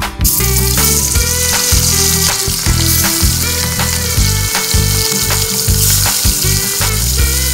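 Rohu fish steaks sizzling loudly as they fry in hot mustard oil in a kadai, the sizzle starting abruptly as the first piece goes into the oil; background music plays underneath.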